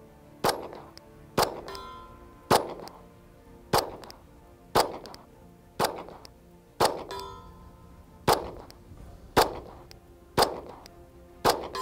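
Glock 47 9mm pistol fired slowly at a steel target 50 yards away, eleven shots at about one a second. A few shots are followed a moment later by a short metallic ring from the steel when the bullet hits; most are misses.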